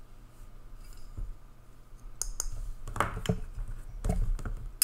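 Small clicks and taps of jewelry pieces being handled and set down, a few scattered sharp clicks mostly in the second half.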